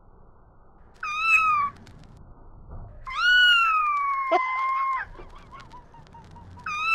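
A domestic cat meowing three times: a short meow about a second in, a long drawn-out meow of about two seconds that sinks slightly in pitch, and another short meow at the end.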